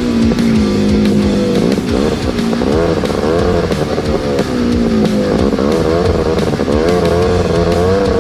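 Honda Odyssey FL350 buggy's single-cylinder engine revving up and down as it is ridden, with rock music and guitar playing over it.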